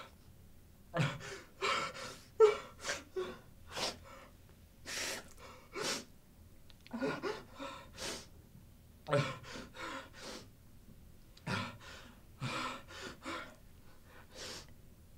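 A man crying: gasping sobs and short whimpering breaths in bouts every second or two, with brief pauses between them.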